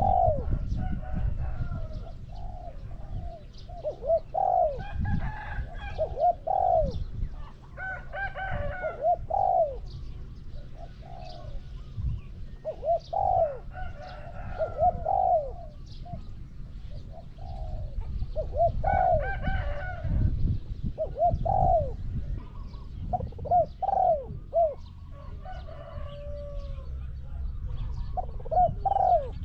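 Spotted doves cooing: repeated phrases of short, curved coo notes every few seconds, over a low rumble.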